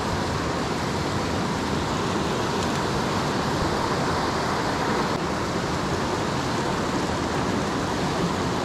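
Steady rush of a small mountain creek's flowing water, an even unbroken noise with no separate events.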